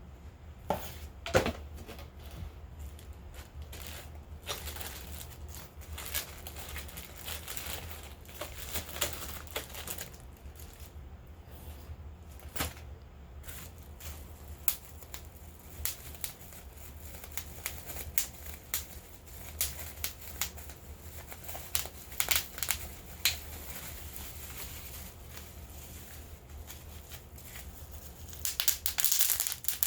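Packaging being handled and unwrapped at close range: crinkling and rustling with scattered taps and clicks, a sharper knock about a second in and a denser burst of crinkling near the end, over a steady low hum.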